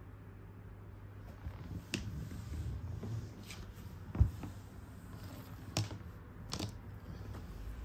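A cat moving about on a round cardboard scratcher: a few light clicks and knocks, with one louder low thump about four seconds in, over a low handling rumble.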